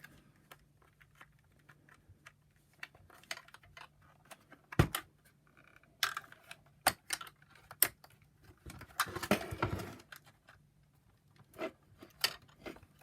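Plastic parts of a Shark vacuum power nozzle being handled and pressed together: scattered clicks and knocks, a sharper knock about five seconds in, a few snaps over the next three seconds, then a short spell of scraping and rattling.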